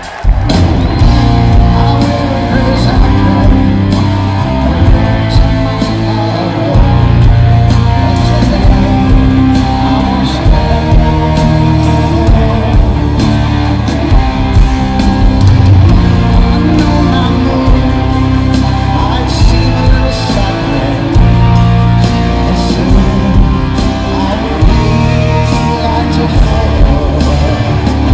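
Live rock band playing loud and full in an arena, with electric guitars, bass and drums; the full band comes in suddenly at the very start.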